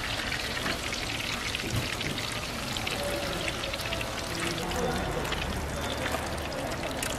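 Battered vegetable fritters (Korean twigim) deep-frying in a pan of hot oil: a steady, dense sizzle full of fine crackles.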